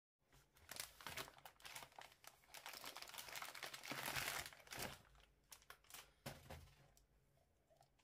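Clear plastic air-column packaging crinkling and rustling as a shower head is worked out of it, a dense run of crackles that is loudest about four seconds in and dies away near the end.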